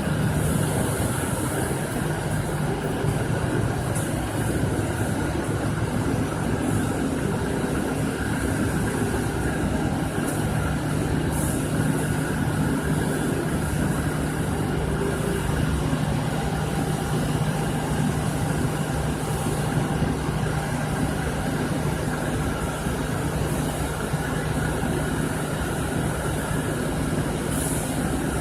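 Steam-producing machine running steadily: a constant low hum under a spread of mechanical noise, with a high hiss that swells briefly every few seconds.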